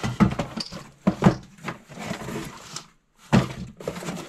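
Cardboard shipping box being pulled off a wooden cabinet shelf by a gloved hand: scraping, rustling and several knocks, the loudest about a second in and again near the end.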